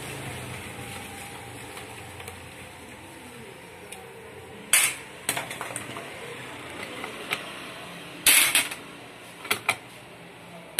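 Sharp metal clanks and knocks as a sewing machine head is handled and shifted about on a workbench during disassembly. The first strike comes about five seconds in, with a tight cluster of knocks near the end. Before that there are a few seconds of steady background noise.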